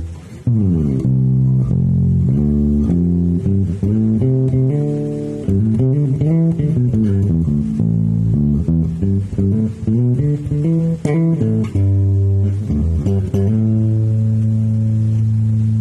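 Electric bass guitar played through a Fender Bassman 20CE bass amp: a run of plucked notes with a slide near the start, ending on a long held low note.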